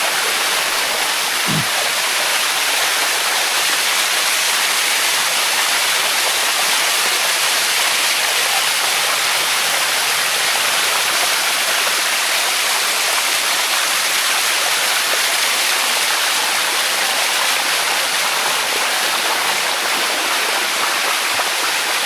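Steady rush of shallow water cascading over the limestone steps of a waterfall, close to the microphone: an even, hissing noise that doesn't let up.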